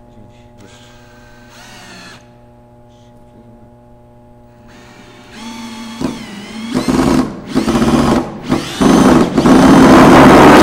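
Cordless drill boring down into the end of a glued-up cedar box. A few faint short whirs come first; about halfway through the motor winds up, then it runs loud in four bursts, the last one longest and stopping abruptly.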